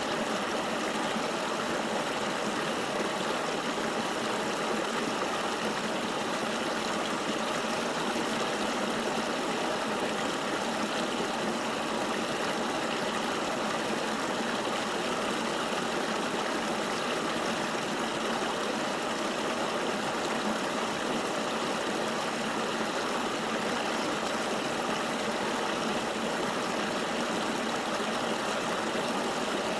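Flowing river water: a steady, even rush with almost no low rumble.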